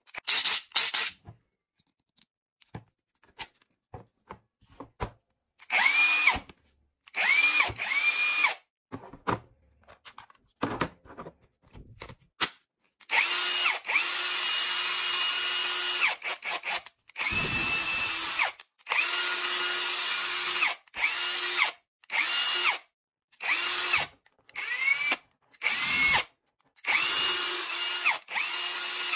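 Bauer 20V brushless impact wrench spinning free with no load in a series of trigger pulls: short blips and longer runs of up to about three seconds, each rising quickly to a steady whine and stopping.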